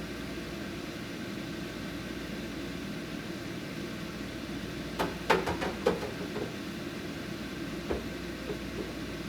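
A steady low hum, with a quick cluster of light knocks and clatters about five to six seconds in and one more knock near eight seconds, as things are handled and set down while cleaning out a refrigerator.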